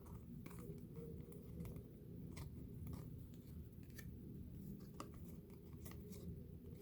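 Faint, irregular light clicks and swishes of trading cards being flipped and slid over one another in the hand, over a steady low hum.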